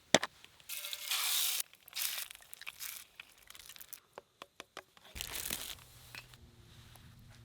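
Crinkling, rustling handling sounds with scattered light clicks and knocks. About five seconds in, a low steady hum sets in.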